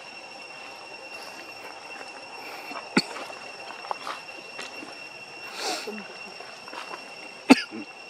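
Steady high-pitched insect drone with two sharp clicks, a small one about three seconds in and a louder one near the end, and a brief rustle a little past halfway.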